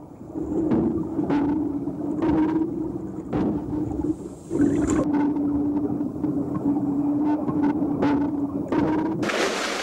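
Underwater sound: a steady low hum with a rumble beneath it and scattered clicks and knocks. The hum drops out briefly about four seconds in.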